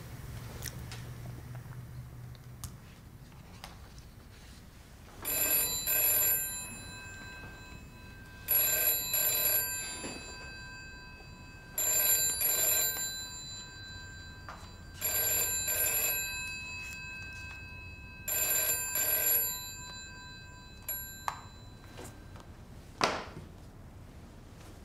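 Telephone ringing in a double-ring pattern, five rings about three seconds apart, then stopping. A small click and a sharper knock follow near the end.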